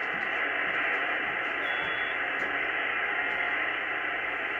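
Steady hiss from an Icom IC-R8500 communications receiver in SSB mode, tuned to the XW-2F satellite's 2-metre downlink, with the satellite's Morse code beacon weak in the noise. A short, thin high tone sounds once, a little before the middle.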